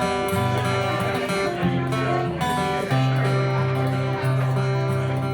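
Acoustic guitar strummed and picked, steady chords between sung verses.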